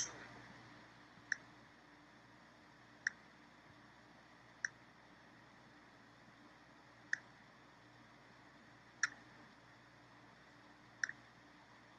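Computer mouse clicking: single sharp clicks every couple of seconds, the last one a quick double click, over a faint steady hum.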